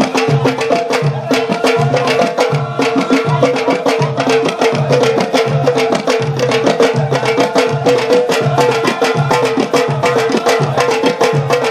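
Live Moroccan Amazigh folk music from a troupe: a deep drum keeps a steady beat under fast, sharp hand-percussion clicks, with a steady held note above.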